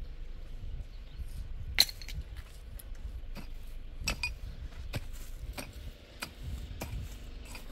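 A series of sharp clinks and taps from hard objects striking, irregularly spaced, the loudest about two seconds in, over a steady low rumble.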